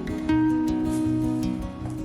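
Background music: a gentle acoustic guitar piece with held, plucked and strummed notes.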